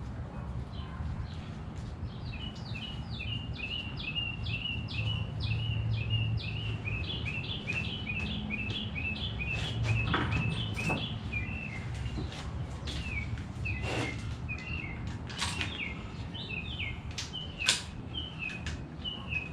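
A small bird chirps over and over in short high notes, about two a second, starting a couple of seconds in. A few sharp metallic clicks and knocks fall in the second half, and a low steady hum runs underneath.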